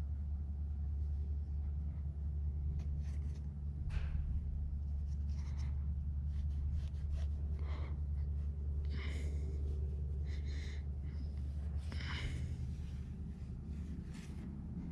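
Soft, scattered rubbing and scuffing as fingers work lubricant into a rubber aircraft door seal, over a steady low hum.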